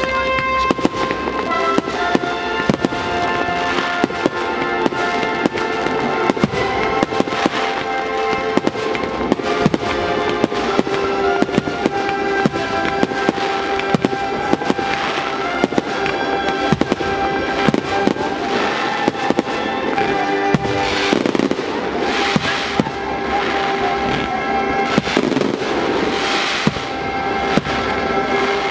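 Fireworks display: a rapid run of aerial shell bangs and crackle over music playing throughout, the bursts coming thicker in the last third.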